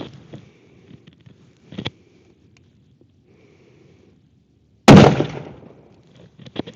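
A single shot from a Ruger Precision Rifle in .308, a loud sharp crack about five seconds in with a tail that dies away over about a second, fired through a freshly cleaned bore. A few short clicks come before it and just after.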